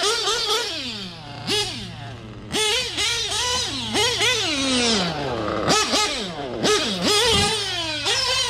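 Novarossi .25 nitro engine in an RC truggy screaming on and off the throttle. Its pitch shoots up and falls away again over a dozen times, about once or twice a second, as the truggy accelerates and slows while the new engine is being broken in.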